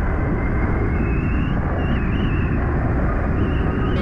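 Wind buffeting the rider's microphone while riding an e-bike: a loud, steady low rumble.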